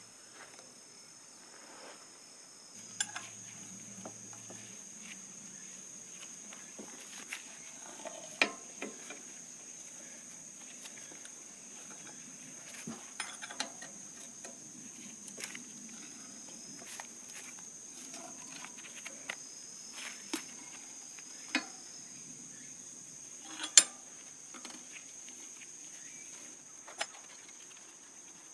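Scattered metal clinks and knocks of tools and parts being handled, the loudest about three-quarters of the way through. A steady high chirring of insects runs underneath.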